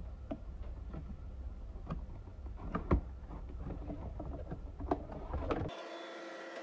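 Packaging being handled: irregular clicks and rustles over a low rumble, the sharpest click about three seconds in. About six seconds in it cuts abruptly to a steady hum made of several tones.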